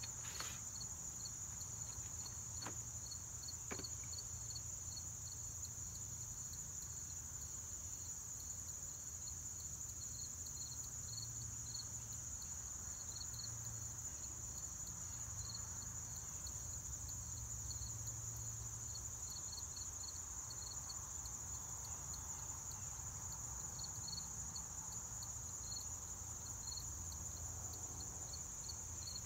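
Insects trilling in a steady, high-pitched chorus, with a second insect's chirp pulsing at a regular beat beneath it. Two faint taps about three and four seconds in.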